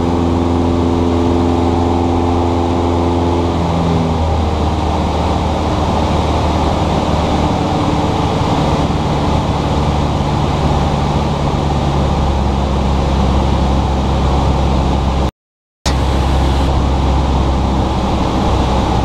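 Cessna 172S's four-cylinder Lycoming engine and propeller droning steadily, heard from inside the cabin, its tone stepping lower about four seconds in. The pilot felt the engine still sounded slightly abnormal after it slumped on departure. The sound cuts out for about half a second near the end.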